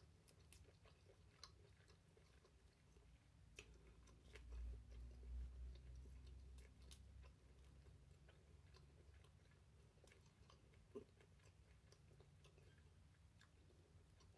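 Faint chewing of lobster meat, with scattered soft clicks as fingers pull the buttery meat apart, and a low rumble about four to seven seconds in.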